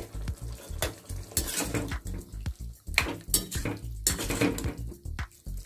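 A slotted spatula stirring curry in a metal pan: a run of irregular clinks, knocks and scrapes against the pan's side and bottom.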